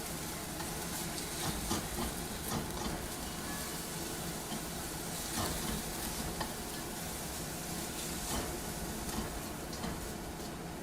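Shredded carrots and cooked ground chicken frying in a hot pan, a steady sizzle, with scattered clicks and scrapes as the filling is stirred.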